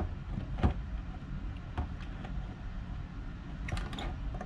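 A few scattered clicks and taps of a metal hand tool against a 3D-printed plastic case while the retaining ring of a pushbutton switch is tightened, the sharpest click at the very start and two close together near the end.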